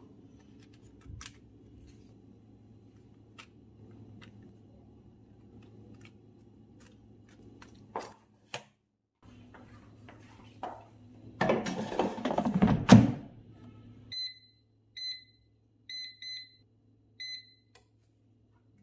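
Air fryer basket clattering and clunking as it is slid into the air fryer, followed by about five short beeps from the air fryer's touch panel as its settings are entered.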